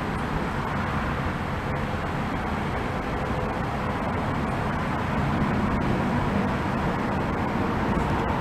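Steady low rumble with faint steady hums above it, unchanging throughout.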